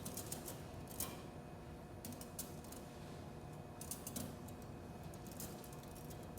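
Steel surgical instruments (forceps, clamps and scissors) clicking and clinking now and then as they are handled and laid together.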